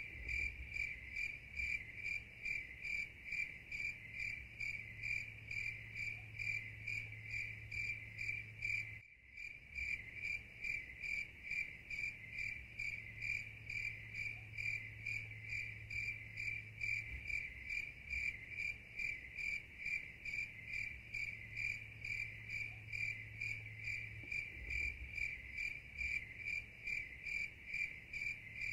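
Crickets chirping in a steady, even rhythm of repeated high chirps, with a brief break about nine seconds in.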